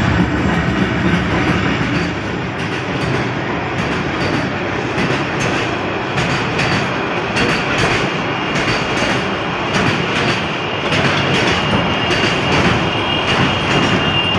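Container freight train rolling past close by, its wagon wheels clacking over the rail joints in an irregular run of clicks. The diesel locomotive's engine is heard loud at the start and fades within the first couple of seconds as it passes.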